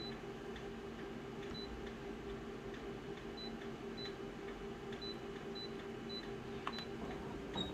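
Short, high single-tone beeps from a photocopier's touchscreen as its keys are pressed, about eight of them at uneven intervals, with one click near the end. A steady low hum runs underneath.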